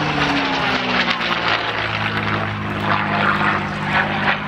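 CAC CA-18 Mustang's Packard Merlin V12 engine and propeller running loud as the fighter flies past overhead. The engine note falls in pitch over the first two seconds as it passes, then holds steady.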